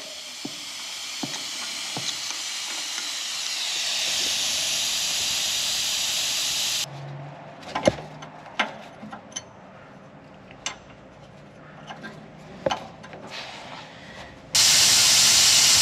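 Compressed-air vacuum brake bleeder hissing steadily on a brake caliper's bleeder screw, pulling brake fluid and air bubbles out through the line. The hiss stops suddenly about seven seconds in, leaving light clicks and taps of hand tools, and starts again, louder, near the end.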